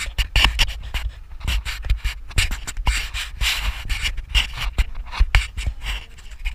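Irregular rustling and crackling with a deep rumble underneath: handling and wind noise on a carried action camera's microphone.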